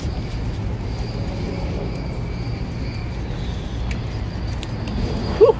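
Steady low rumble of road traffic around a parking lot, with a brief voice near the end.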